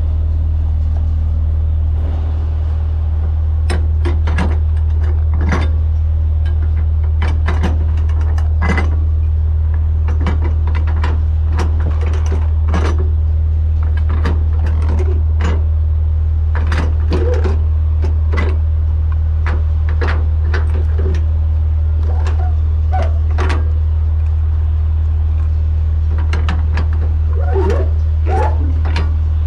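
Flatbed trailer strap winch being cranked tight with a winch bar: the ratchet pawl clicks irregularly, a few clicks with each pull on the bar. Under it runs the steady low drone of an idling truck engine.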